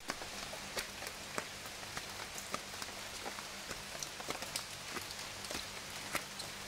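Rain falling: a steady hiss with sharp, irregular drops landing close by, several a second.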